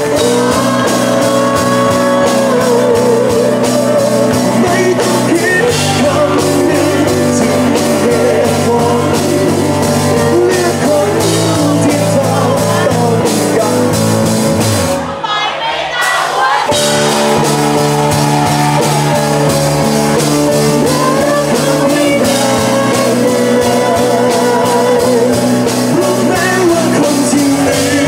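Live pop-rock band playing with two male singers, electric guitar and drum kit behind the vocals. About halfway through the band stops dead for a moment, then comes back in at full volume.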